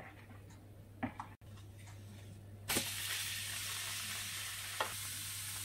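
A thin crêpe of milk batter frying in a lightly oiled pan, sizzling steadily from about halfway in. Before that come a couple of short knocks.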